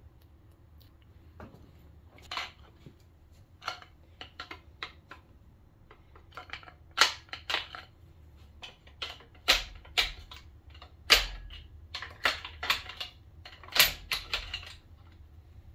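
Irregular metallic clicks, clinks and knocks of engine parts and hand tools being handled as the main bearing caps are worked off the engine block, with a few sharper, louder knocks in the second half.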